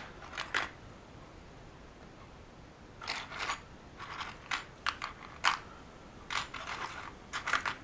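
A small square of sandpaper rubbed by hand over a cast-resin figure part to sand away a mold line: a couple of brief scratches at the start, then from about three seconds in a run of short, dry scratching strokes.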